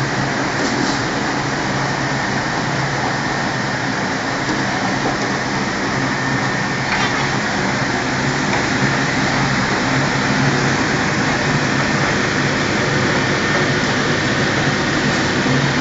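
Commercial rectangular wafer fryer running: a steady hiss of chips frying in hot oil over a low, even machine hum.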